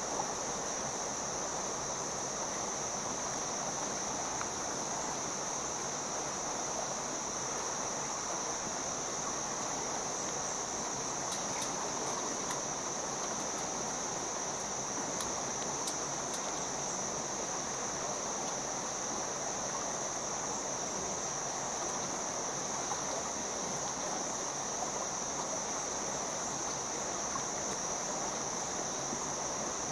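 Stream water rushing steadily between boulders, with a constant high-pitched insect drone over it.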